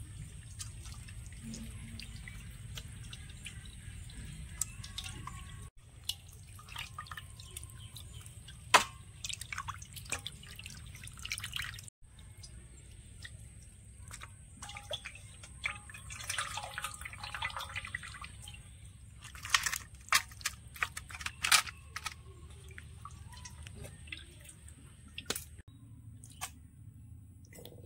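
Kitchen water sounds: dripping and splashing with scattered sharp clicks and knocks, over a steady low hum. A denser stretch of splashing comes about sixteen seconds in.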